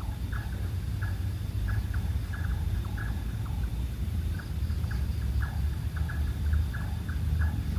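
Low rumble of wind on the microphone, under an irregular run of short high chirps, several a second, from small animals.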